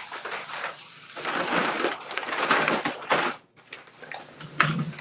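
Brown paper grocery bags crinkling and rustling as they are handled, in irregular bursts with several sharp crackles.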